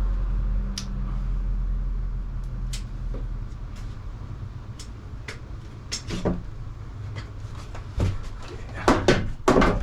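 Scattered wooden knocks and clunks as plywood pieces and weights are handled and set down, over a steady low rumble, with a busier burst of knocks near the end.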